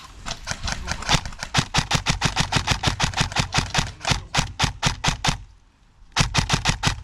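Airsoft replica firing a rapid, steady string of shots, about seven a second, with a short pause near the end before the firing resumes.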